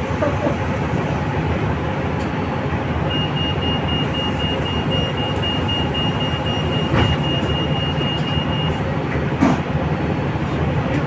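Steady road-traffic noise of vehicle engines running nearby. A rapid, high-pitched beeping sounds for about six seconds, starting about three seconds in.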